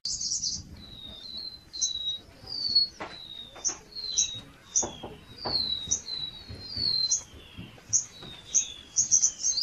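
Small birds chirping over and over: short, high chirps, many with a quick falling note, coming a few times a second and bunching into a fast run near the end, with a few soft knocks in the middle.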